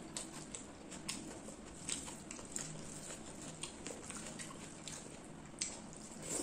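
Close-up eating sounds of rice and chicken curry eaten by hand: wet chewing and lip smacks in irregular sharp clicks, with the squish of curry-soaked rice being mixed between the fingers. One smack about five and a half seconds in is louder than the rest.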